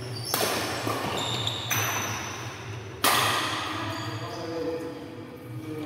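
Badminton rackets striking the shuttlecock in a doubles rally: three sharp, ringing string hits about a second and a half apart, the third and loudest about three seconds in. A steady low hum runs beneath.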